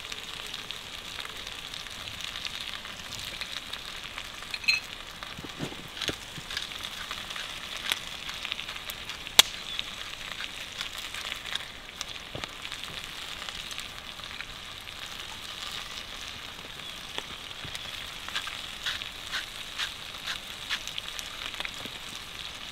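Potatoes, onions, vegetables and sliced bratwurst sizzling in a pot over a campfire: a steady frying hiss with scattered sharp pops, one louder about nine seconds in.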